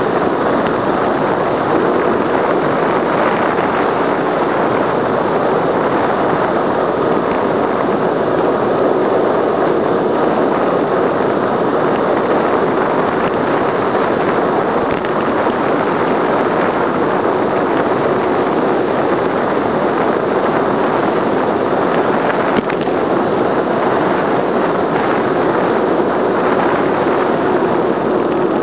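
Steady, loud wind rush over the camera's microphone from a bicycle descending at around 50 km/h, with one brief knock about two-thirds of the way through.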